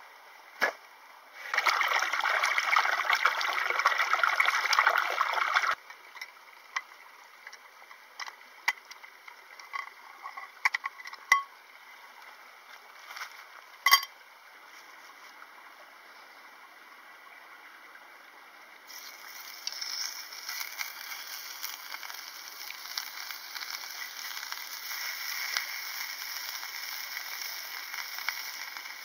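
Beef steaks sizzling in a frying pan over a gas single burner: a steady hiss that starts about two-thirds of the way in. Before it, a loud rushing noise for about four seconds near the start, then scattered clicks and knocks of cookware being set up, with one sharp click near the middle.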